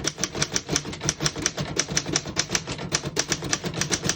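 Keys of a 1936 Corona Standard portable typewriter being typed quickly, a fast, fairly even run of sharp clacks at about six or seven strokes a second. The typebars strike cleanly, with no keys skipping or sticking.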